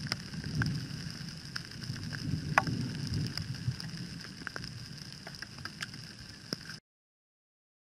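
Raindrops ticking irregularly on the camera and motorcycle over the low rumble of a 2008 Kawasaki KLR 650's single-cylinder engine. The sound cuts off abruptly near the end.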